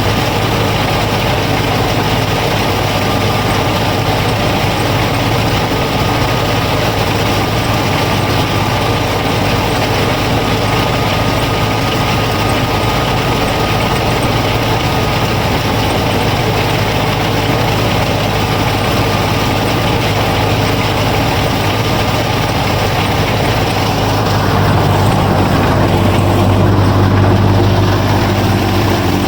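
Motor of a DIY miniature combine harvester and thresher running steadily, with a faint steady whine over a low hum. About 25 seconds in the sound turns heavier and lower as the whine fades.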